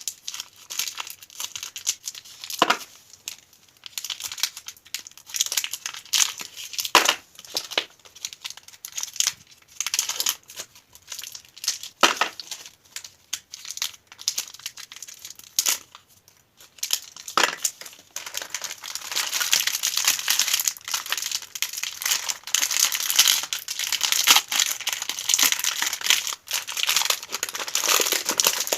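Candy wrappers being crinkled and torn open by hand: irregular crackling with a few sharp snaps, growing dense and continuous in the last third.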